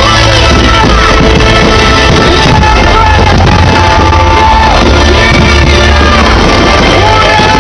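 Loud music with a singing voice over heavy bass.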